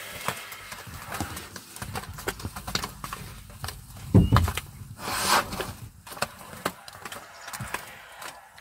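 Sri Lankan elephant herd close by in scrub: scattered crackling and rustling of vegetation as the elephants shift and feed, with a brief loud low thump about four seconds in and a short breathy hiss about a second later.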